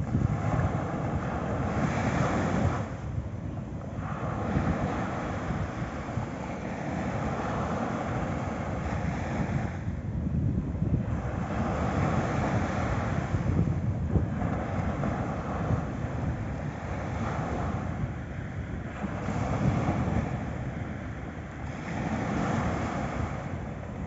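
Small waves breaking and washing up a sandy beach, the surf swelling and easing every few seconds, with wind rumbling on the microphone.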